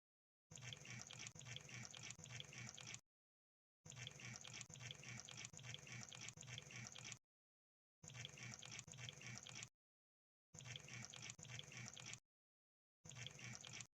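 Crab sound effect: rapid crackling clicks and bubbling in bursts of two to three seconds, each cut off by complete silence, five bursts in all.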